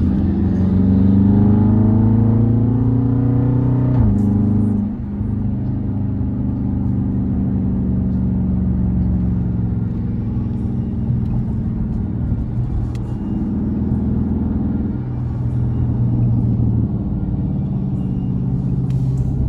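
Dodge Charger engine accelerating, its pitch rising for about four seconds, then dropping sharply at an upshift and settling into steady running.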